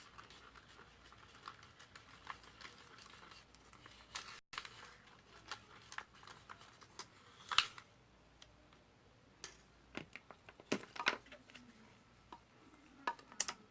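Light, scattered clicks and taps of plastic being handled while liquid soap is squeezed into a pot of clear-glue slime mix. A few sharper clicks stand out, twice in the second half.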